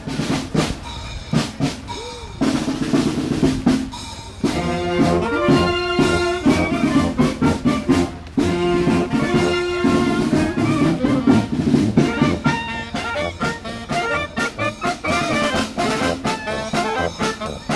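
Marching band playing: drum strokes alone for the first couple of seconds, then sousaphone, saxophones and clarinet come in with a tune over the drum beat.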